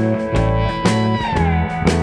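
Background music led by electric guitar over a steady beat, with one held guitar note sliding down in pitch about halfway through.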